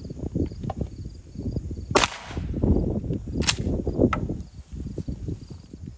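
A 12-gauge Mossberg Maverick pump shotgun fires a single birdshot shell about two seconds in, its report ringing out briefly. It is followed by two sharp clicks about half a second apart, typical of the pump slide being worked back and forward.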